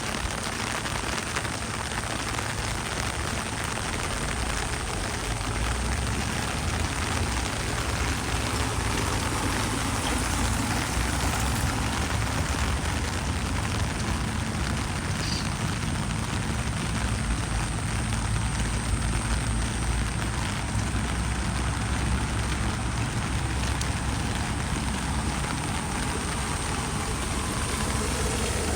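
Steady rain falling, an even hiss, with a low engine drone underneath that grows a little louder midway.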